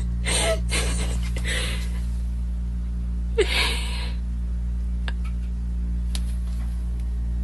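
Steady low hum with several short breathy bursts over it, the loudest about three and a half seconds in.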